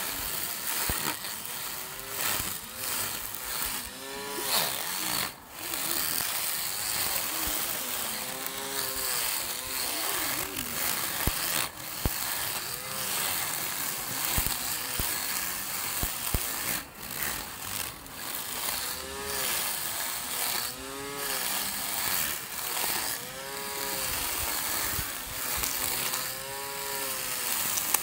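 Small handheld electric grass trimmer running while cutting grass, a continuous whir whose pitch swells and falls back again and again.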